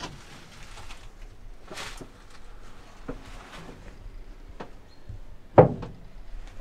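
Scattered knocks, clicks and rustles of someone handling things inside the cab of a Kirovets K-700A tractor, with one sharp, much louder knock about five and a half seconds in. The engine is not running.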